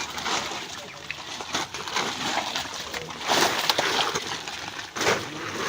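Pond water splashing and sloshing as a drag net is worked through it, with louder splashes about three and a half seconds in and again about five seconds in.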